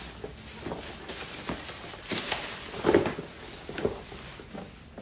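Black plastic packaging crinkling and rustling as it is handled and pulled open, in irregular bursts, loudest about three seconds in.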